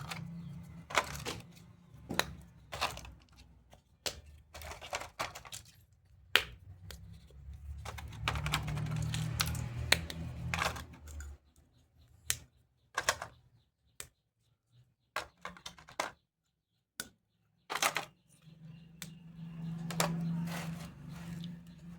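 Hands handling small plastic toy doctor-kit pieces: irregular clicks and taps, with two longer stretches of rubbing and rustling.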